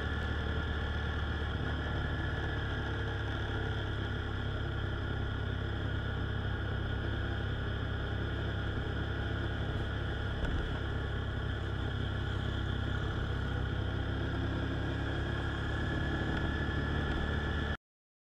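Riding sound from a sport motorcycle heard through a bike-mounted camera: steady engine and wind rumble at cruising speed, which cuts off suddenly near the end.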